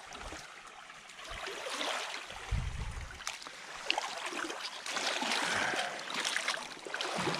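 Shallow river water trickling and rippling, with scattered small clicks and splashes. A brief low rumble comes about two and a half seconds in.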